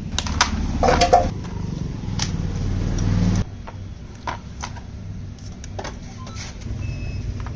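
Engine running with a steady low hum that stops abruptly about halfway through, amid scattered sharp clicks and taps; near the end a high beep repeats several times.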